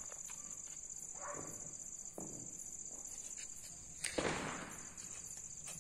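Crickets chirring steadily. About four seconds in, a small firecracker goes off with a sharp pop and a brief hissing crackle.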